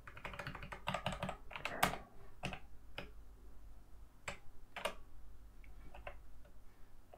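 Computer keyboard keys being pressed: a quick run of keystrokes near the start, then single presses every half second to a second, as lines of text are broken with the Enter key.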